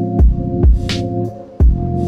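Background instrumental music with a steady drum beat: kick drum and snare under sustained chords.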